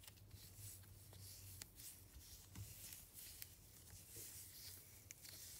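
Faint rubbing and soft scattered clicks of fingers kneading a squishy's soft paper-clay-like filling mixed with sand-like slime, over a low steady hum.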